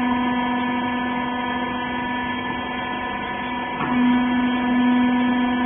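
Rag baler machine's electric motor and hydraulic pump running with a steady hum. A short click comes nearly four seconds in, after which the hum is a little louder.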